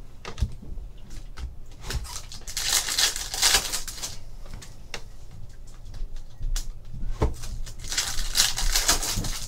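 Foil trading-card pack wrapper crinkling and tearing open by hand, in two spells: one about three seconds in and another near the end, with light clicks of cards being handled in between.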